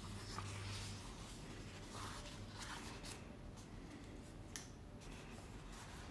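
Pages of a paperback book being turned by hand: faint, soft paper rustles, with a light tick about four and a half seconds in.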